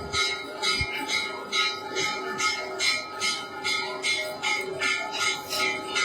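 Metal temple bells struck in a steady rhythm, about two strikes a second, over a steady ringing tone.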